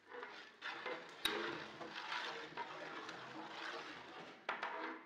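Long-handled metal ladle stirring thick green masala gravy in a large aluminium cooking pot: wet sloshing and scraping, with a sharp clank against the pot about a second in and another near the end.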